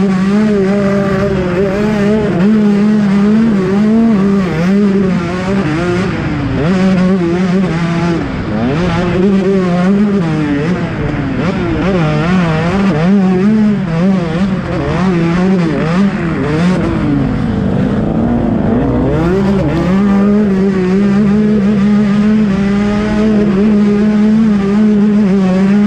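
KTM 125 SX two-stroke single-cylinder motocross engine being ridden, its pitch constantly rising and falling with the throttle. It drops lower for a couple of seconds about eight seconds in and again about seventeen seconds in.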